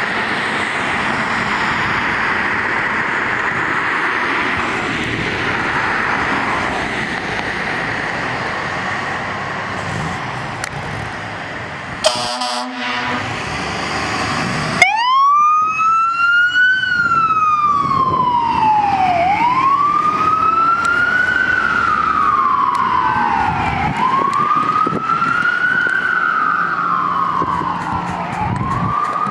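Fire engine on a call: steady road and engine noise, then a short buzzy horn blast about twelve seconds in. About halfway through its siren comes on in a wail, sweeping slowly up and down about every four and a half seconds.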